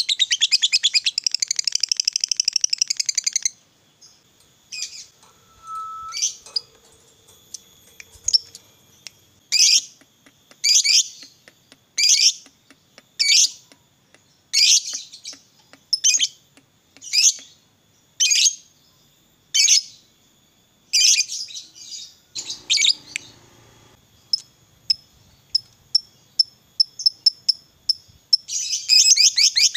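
Lovebird calling: a long, fast rattling trill, the 'ngekek' chatter, for the first three seconds or so, then sharp single chirps about once a second. The chirps quicken into a run of short notes, and another fast trill starts near the end.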